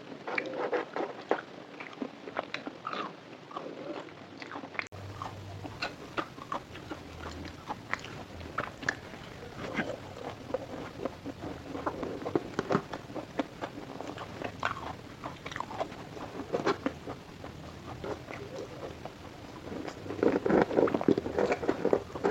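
Close-miked biting and chewing of crunchy fried food, a run of irregular crunches and mouth clicks, denser and louder near the end.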